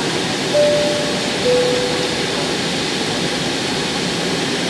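Steady roar inside the cabin of an Airbus A321 airliner in flight, from its engines and the air rushing past. About half a second in, a two-note cabin chime sounds, high then lower.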